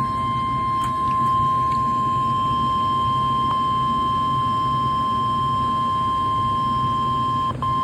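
Emergency alert warning tone: a single steady high beep held throughout, with a brief dropout near the end, over a low radio hum and hiss. It is the single-tone warning alarm of NOAA Weather Radio, which signals that a warning message (here a severe thunderstorm warning) is about to be read.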